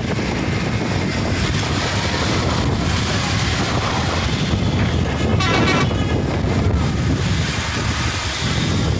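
Steady low rumble of street traffic and vehicle engines mixed with wind buffeting the microphone from a moving vehicle, with a short wavering horn sound about five and a half seconds in.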